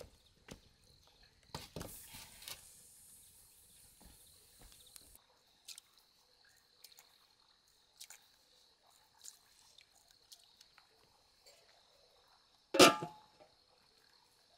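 A loud metallic clang near the end as an aluminium lid is set down on a large cooking pot. Before it, scattered small clicks and crackles from a wood fire over a steady high-pitched drone.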